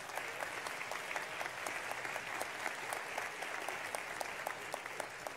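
Audience applauding: a steady patter of many hands clapping.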